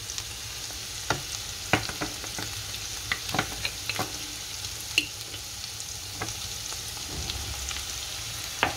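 Chopped beef liver and onions frying in oil in a nonstick pan: a steady sizzle with scattered sharp ticks and pops.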